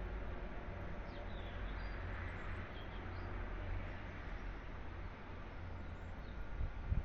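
Night-time city ambience: a steady low hum of distant traffic, with a few faint, short bird chirps over it and a single low thump near the end.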